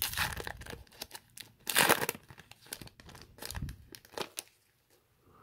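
Foil wrapper of a 2017-18 Upper Deck Series 1 hockey card pack being torn open and crinkled by hand, in several short crackling bursts, the loudest about two seconds in.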